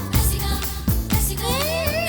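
Tamil film song music with a steady driving beat; a sustained melodic line slides up into a held note near the end.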